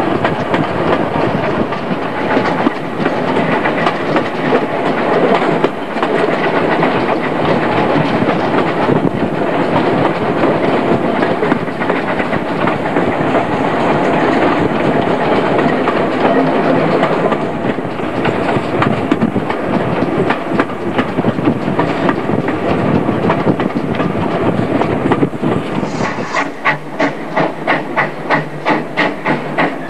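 Passenger train heard from an open carriage window: a steady rush of wheels on rail and passing air. About 26 seconds in the sound changes to a regular beat of two or three puffs a second, the exhaust of a steam locomotive working.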